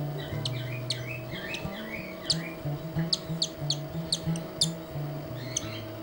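Baby cockatiel chick giving short, high cheeps, a few to a second at its busiest, while being hand-fed formula through a feeding tube.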